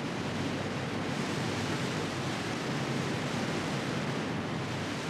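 Steady rushing hiss of an ammonium nitrate fluid bed, with compressed air blown up through the prill pellets to keep them flowing like a liquid.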